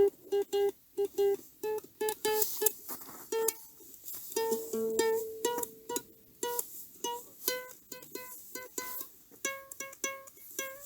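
Instrumental music on a plucked string instrument: short single notes picked a few per second in a changing melody, with no singing.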